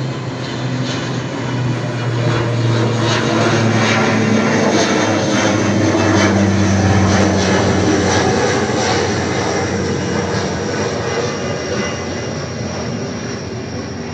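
Airplane flying low overhead. The engine drone swells for several seconds to a peak, then slowly fades as it passes.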